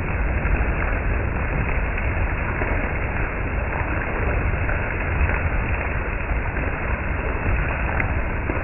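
Strong summer-storm wind blowing against the microphone, a steady, dense rushing noise with a heavy low rumble.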